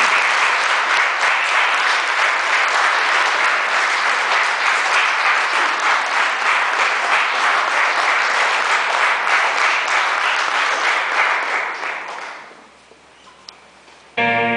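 Audience applause, many hands clapping thickly, fading away about twelve seconds in. Music begins right at the end.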